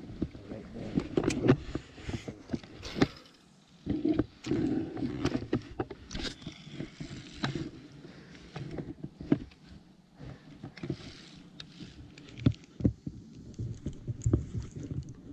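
Fishing from a small boat: irregular low slaps of water against the hull, mixed with scattered sharp knocks and clicks of rod-and-reel handling.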